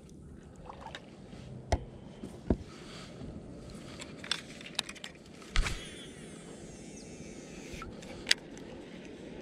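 Knocks and clicks of a paddle and fishing gear against a plastic kayak, about six in all, the loudest a dull thump about halfway through, over a low steady hiss of water and wind.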